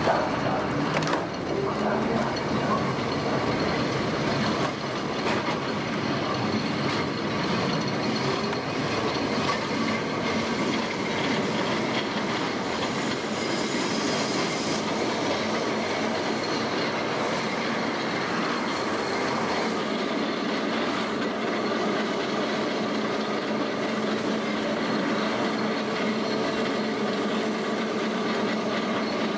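1930s vintage tramcar running on its rails, with a steady rolling rumble of wheels on track and scattered clicks. A brief high wheel squeal comes about halfway through.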